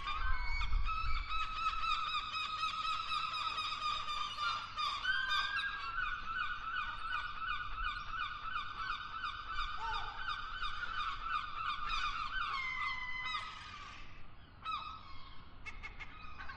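A long, nasal honking tone with a fast jittery waver that holds for about thirteen seconds, lifts slightly in pitch partway through and slides down as it ends; shorter broken honk-like calls follow near the end.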